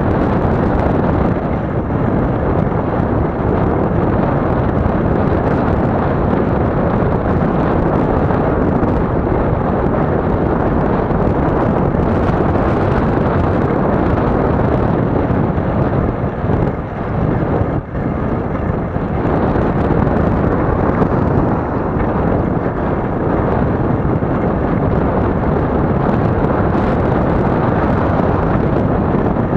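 Loud, steady wind rumble on the microphone of a camera moving along a road, with a brief dip about two-thirds of the way through.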